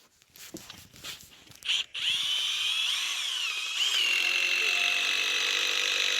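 A few light knocks and handling clicks, then about two seconds in a power drill starts up and runs with a steady high whine, its pitch dipping briefly a couple of times as the bit loads up in the wood.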